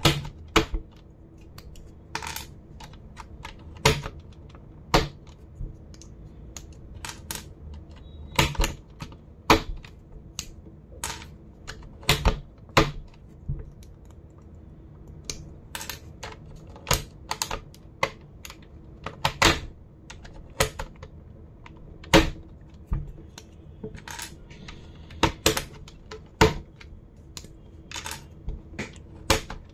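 Sharp plastic clicks and clacks of a computer keyboard being handled. They come irregularly, roughly one or two a second, some in quick pairs or clusters.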